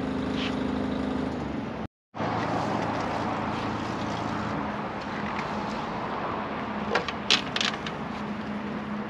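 Onions sizzling in a small cast iron pan on a grill, over a steady low hum. The sound drops out for a moment about two seconds in, and a few short metal clicks and scrapes come near the end.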